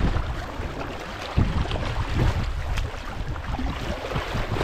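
Double-bladed paddles dipping into river water as two people paddle a tandem inflatable kayak, with wind rumbling in gusts on the microphone.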